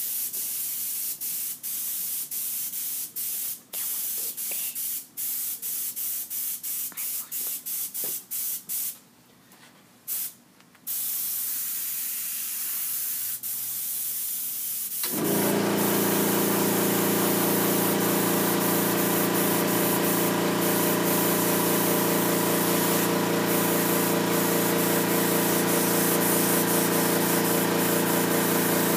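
Airbrush spraying in short hissing bursts as the trigger is pressed and released, with one longer pause. About halfway through, a steady motor hum starts and keeps running, louder than the spray, most likely the airbrush's air compressor cutting in.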